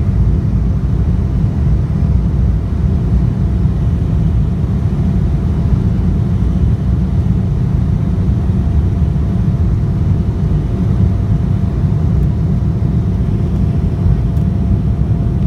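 Jet airliner cabin noise while the plane rolls along the ground: a steady low rumble with a faint steady whine above it.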